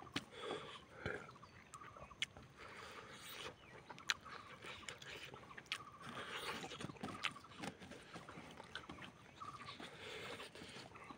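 Eating sounds of rice and chicken eaten by hand: wet chewing and lip-smacking with many sharp mouth clicks, and fingers scraping rice on a banana leaf.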